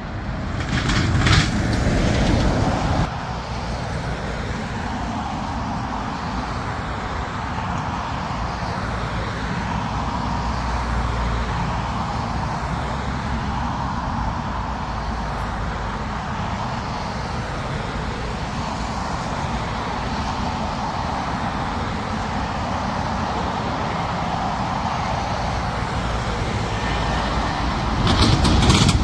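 Jet airliner engines: a Ryanair Boeing 737-800 running on the runway for the first few seconds, then after a sudden cut a steady, distant jet rumble from an airliner on approach, growing louder near the end as a Lufthansa Airbus A320neo comes in close on final.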